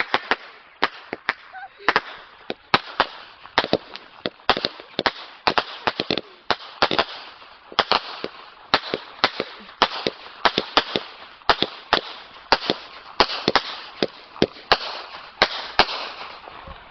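Fireworks going off in a rapid, irregular string of sharp bangs and cracks, several a second, thinning out near the end.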